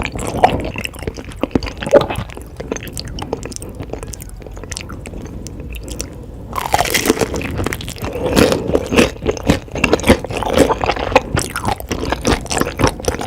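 Close-miked eating sounds: a person biting and chewing crunchy food, with many short crisp crunches. It quietens for a few seconds in the middle, then the crunching picks up again and grows denser from about halfway through.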